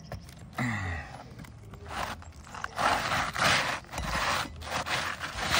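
Asphalt roofing shingle scraping against the gritty shingles around it as a replacement shingle is pushed up into place under the course above, in several rough scraping strokes from about three seconds in, the last one the loudest.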